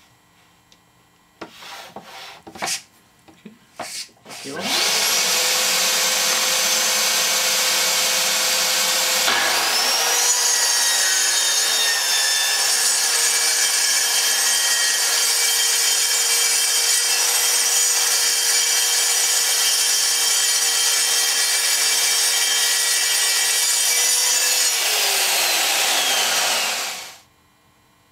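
A few knocks, then a budget plunge-cut track saw with a 24-tooth blade starts up and runs steadily while ripping along the grain of half-inch plywood. About nine seconds in the sound dips briefly and picks up again; near the end the motor winds down and stops.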